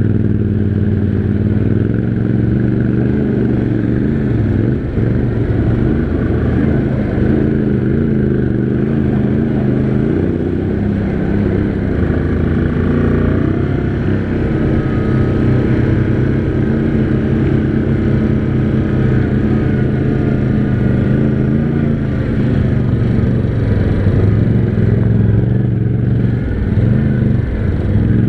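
Yamaha Grizzly 700 ATV's single-cylinder engine running steadily as it rides along a trail, its pitch wavering slightly with the throttle, with no hard revving.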